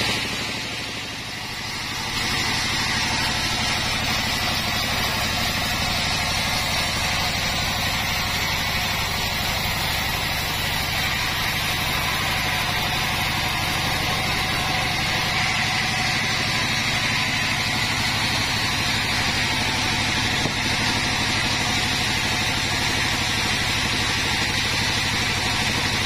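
Band sawmill running steadily, a continuous machine noise from its motor and blade, with a brief dip in level about a second in.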